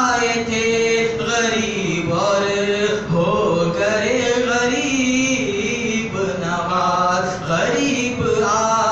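A man's solo voice chanting an Urdu manqabat in praise of Gharib Nawaz into a microphone, without instruments, in long held melodic lines broken by short breaths.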